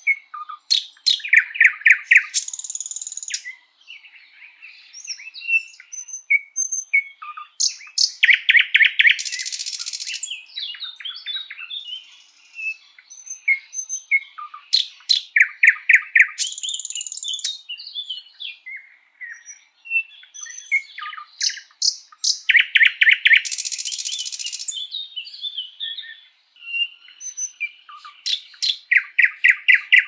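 Thrush nightingale (sprosser) singing. Loud phrases come about every six or seven seconds, five in all, each a string of sharp clicks, then a fast run of repeated notes, then a harsh rattle. Softer, varied twitters fill the gaps between phrases.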